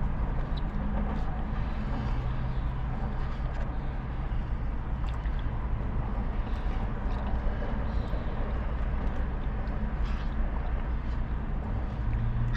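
Steady low hum of an idling car engine heard inside the cabin, with a few faint small clicks.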